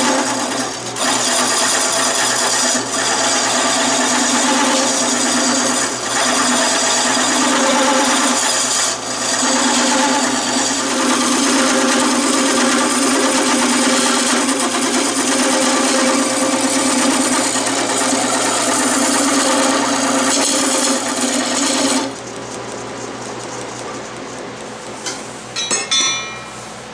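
Wood lathe spinning a wooden handle blank while a hand-held turning tool cuts along it, a loud steady shaving noise. About 22 seconds in the cutting stops and only the quieter running of the lathe is left, with a brief scrape near the end.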